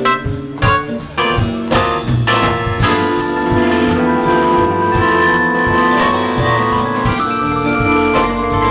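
Electronic keyboard playing live: short struck piano-like chords for the first few seconds, then long held organ-like chords.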